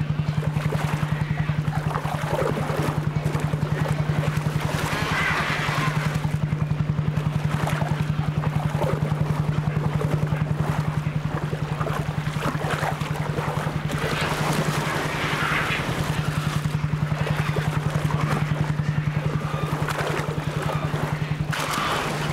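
Fishing boat's engine running steadily, a low, even throb that never lets up, with water splashing and churning over it.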